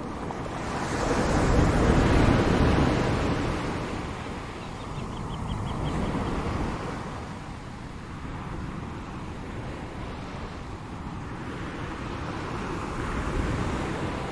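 Ocean surf: waves breaking and washing up the shore in slow swells, the biggest about two seconds in, a smaller one around six seconds and another near the end.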